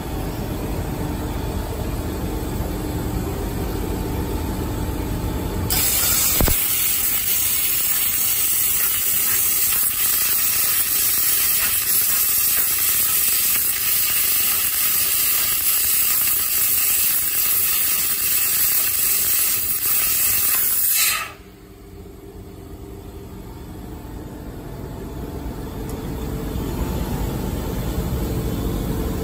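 Fiber laser cutting head cutting 1.2 mm sheet metal, its assist gas jetting from the nozzle as a loud steady hiss that starts about six seconds in and cuts off suddenly about two-thirds of the way through. A low rumble runs underneath before and after the hiss.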